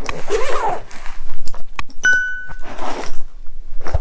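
Rustling of a soft backpack being handled, then a click and a single short bell-like ding about two seconds in: a subscribe-button notification sound effect.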